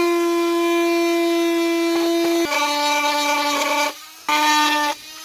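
Small handheld rotary tool whining at a steady high pitch as its bit cuts a groove along a crack in a plastic motorcycle fairing. The pitch drops a little about halfway through, and the tool stops briefly twice near the end and starts again.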